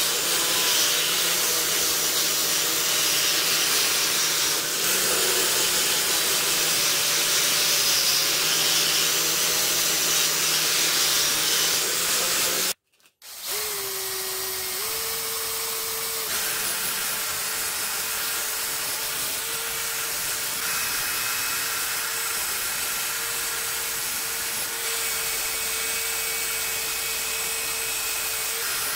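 Angle grinder with a wire wheel whirring against the rusty steel head of a splitting maul, stripping rust. It cuts out briefly about 13 seconds in. After that comes a cordless drill with a wire brush scrubbing the head, quieter, with a steady whine.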